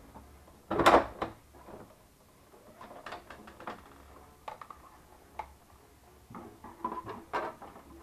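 Plastic housing panels of a Jura E8 coffee machine being handled and lifted off. There is a loud plastic clatter about a second in, then scattered clicks and knocks, with another cluster of knocks near the end.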